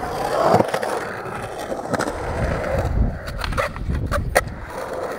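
Skateboard wheels rolling on concrete, with several sharp clacks of the board hitting the ground, the loudest a little over four seconds in.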